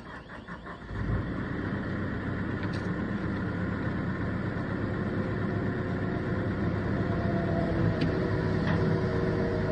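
JLG telehandler's diesel engine picking up sharply about a second in, then running steadily under load as the boom lowers a shipping container.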